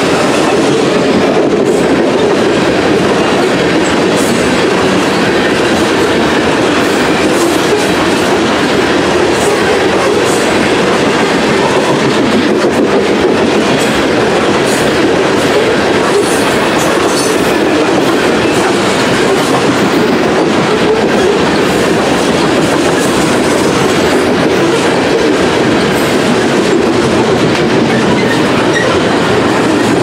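Freight train of coal hopper cars rolling steadily past: a continuous loud rumble with the clatter of steel wheels on the rails.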